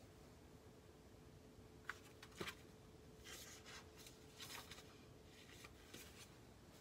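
Faint rustles and soft taps of a picture book's paper pages being handled and turned, a handful of short sounds over a few seconds, over a faint steady room hum.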